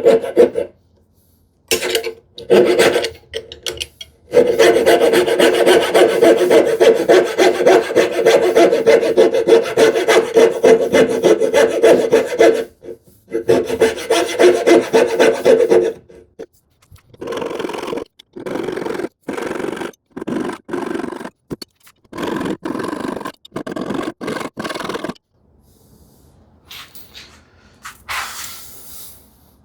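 Coping saw cutting the waste out of a dovetail joint in wood, making a second pass: short strokes at first, then a long run of fast, steady strokes with a humming tone, then slower, quieter separate strokes about one a second that stop a few seconds before the end.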